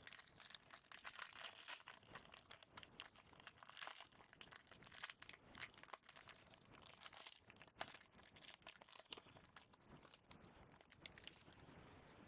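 A trading-card pack's wrapper being torn open and crinkled, a run of irregular crackles and rustles that die away near the end.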